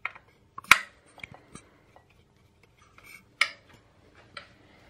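Sharp metallic clicks and clinks of hand tools against the mounting hardware of a mid-drive e-bike motor as it is fitted into the bottom bracket: about six separate knocks at irregular intervals, the loudest about three-quarters of a second in and another about three and a half seconds in.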